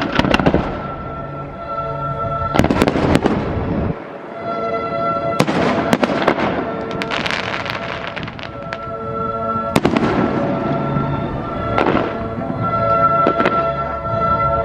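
Fireworks display: a series of sharp bangs every few seconds, each followed by crackling, with music playing underneath.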